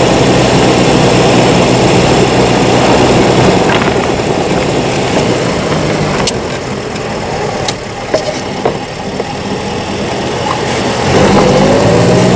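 1938 Austin 10 Cambridge's four-cylinder side-valve engine running while driving in slow town traffic, heard from inside the car. It eases off after the middle with a few sharp clicks, then picks up again near the end, its pitch rising as the car accelerates.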